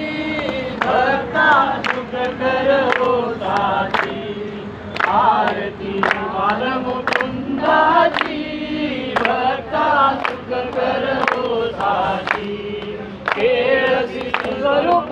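A mixed group of men and women singing a devotional bhajan together, kept in time by sharp beats about twice a second.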